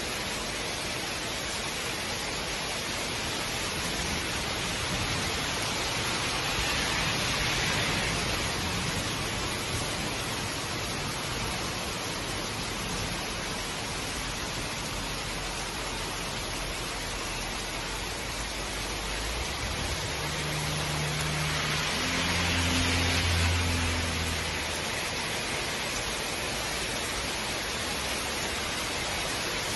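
Heavy rain pouring steadily on trees, grass and pavement, an even hiss that swells a little twice. A low hum rises and fades about twenty seconds in.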